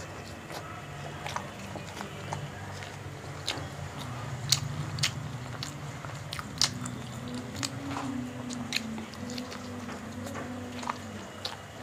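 Close-up eating sounds: chewing and biting of fried bhature bread and chickpea curry (chole), with many sharp wet mouth clicks and smacks. A low steady hum runs underneath.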